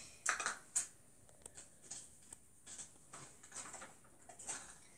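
Faint, scattered clicks and taps of hard plastic parts being handled on a toy slime maker, with a couple of brief rustles about half a second in.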